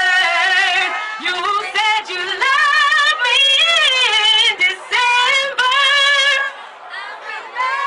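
A woman singing, with heavy vibrato and sliding runs between notes. No drum beat shows underneath. The voice softens briefly near the end.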